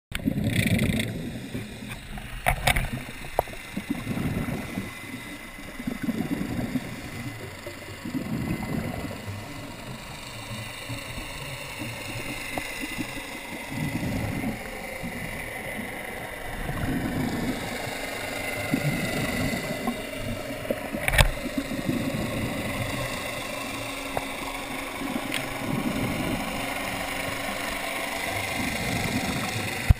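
Underwater sound through a scuba diver's camera: the diver's exhaled regulator bubbles rumble in repeated low swells every couple of seconds over a steady whine with slowly gliding tones, typical of a boat's engine and propeller heard through the water. Two sharp knocks stand out, one early and one about two-thirds through.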